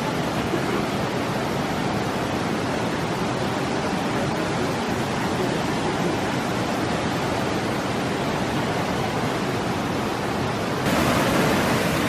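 Steady rush of a river waterfall pouring over rock slabs into a pool. About eleven seconds in it switches to a closer cascade, a little louder and brighter.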